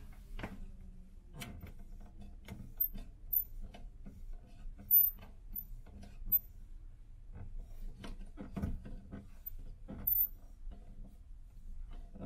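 Round ceiling air vent adjusted by hand: its centre knob is turned, giving a run of irregular small clicks and rubbing over a low steady hum.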